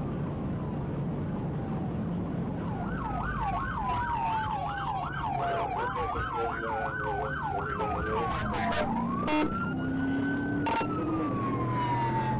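Police sirens: one in a slow wail that falls, rises and falls again, and another in a fast yelp warbling about three times a second that stops a little past halfway. Under them is the steady engine and road noise of the pursuing patrol car, with a few sharp clicks in the second half.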